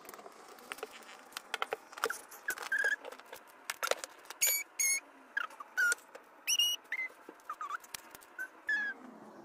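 A utility knife slitting the seal of a small cardboard box, then the box being slid open and a plastic tray handled: many short scrapes and clicks. Several short squeaky chirps are mixed in, the loudest about halfway and two thirds through.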